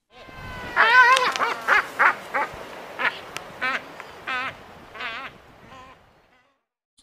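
Waved albatrosses calling during courtship display. A long call with a wavering pitch comes about a second in, followed by a run of shorter, wobbling calls.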